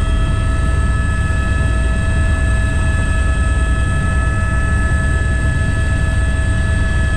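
A helicopter's turbine and rotor heard from inside the cabin in flight: a steady high whine made of several constant tones over a heavy low rumble, unchanging throughout.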